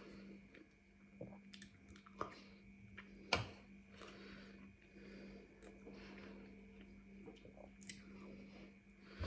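A person chewing and biting a burrito, with soft, wet mouth sounds and a few sharp clicks, the loudest about three seconds in, over a faint steady hum.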